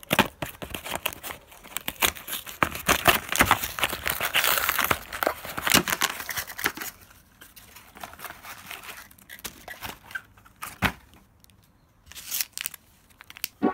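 Cardboard, paper and plastic packaging being handled, crinkled and torn while an LED strip kit is unpacked: dense crackling for the first seven seconds or so, then a few separate rustles and clicks.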